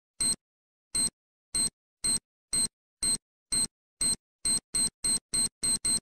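Bomb-timer sound effect: a high electronic beep repeating, first about once every two-thirds of a second, then steadily quickening to about four a second by the end. These are the speeding-up countdown beeps of a bomb about to go off.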